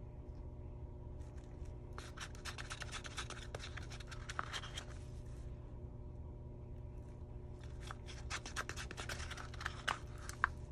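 Wooden stir stick scraping thick epoxy resin out of a paper cup in quick scratchy strokes, in two spells, about two seconds in and again near the end. A steady low hum runs underneath.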